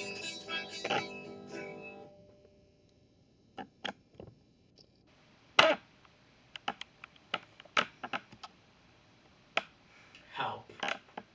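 Guitar music for about the first two seconds, fading out, then a quiet room with scattered sharp clicks and knocks.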